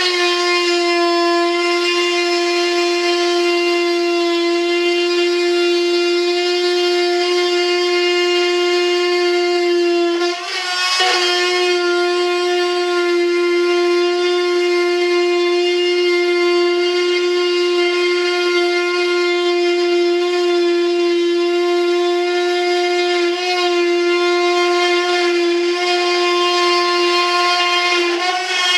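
Corded high-speed rotary tool running with a steady high whine as it trims the edge of a cured resin mold. About ten seconds in, the pitch and level dip briefly, then come back up.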